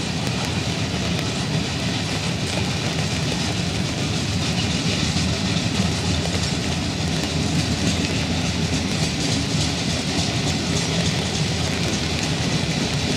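Freight train rolling past with a steady rumble. The cars' wheels click over the rail joints.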